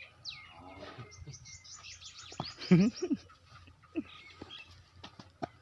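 Small birds chirping with quick, high, repeated falling notes. A short louder cry comes a little under three seconds in.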